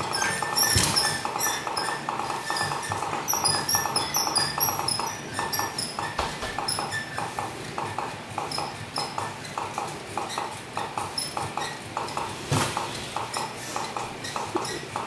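Electronic trotting sound effect from a toddler's ride-on toy horse: an even, repeating rhythm of hoof clip-clops with short high tinkling notes over it.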